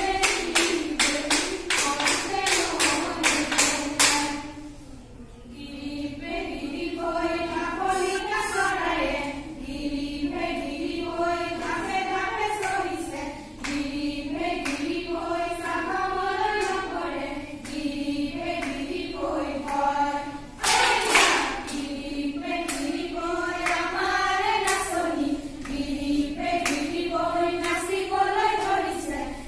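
A group of women's voices singing a Jeng Bihu song together in phrases that rise and fall. For the first four seconds fast, steady claps keep the beat, then fall away to scattered claps under the singing, with one loud sharp clap or shout about two-thirds of the way through.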